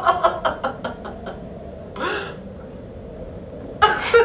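A woman laughing in a run of short bursts, then a sharp breath about two seconds in, and laughing again near the end.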